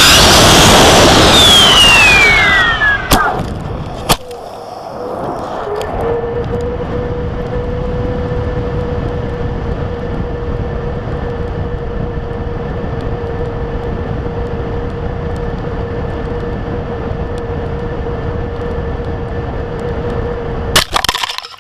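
Rocket flight heard from a camera riding on the rocket. Estes C6-3 black-powder motors burning, a loud rushing roar with a whistle falling in pitch, cut off about three seconds in, then a sharp pop about four seconds in from the ejection charge. The rest is a steady air rush with a steady whistling tone during the descent, ending in a loud clatter near the end.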